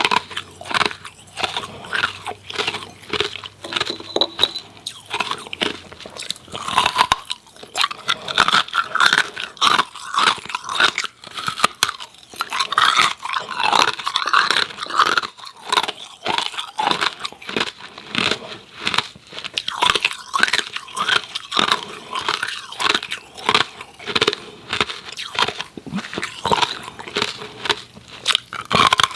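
Close-miked crunching of hard ice cubes between the teeth: rapid, irregular crunches as the ice is bitten and chewed.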